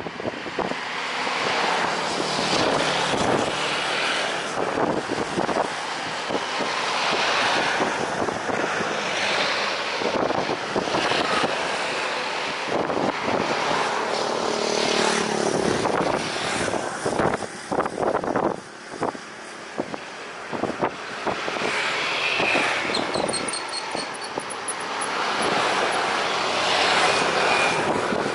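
Strong gusty wind buffeting the microphone, with road traffic passing close by; a vehicle's engine passes briefly about halfway through.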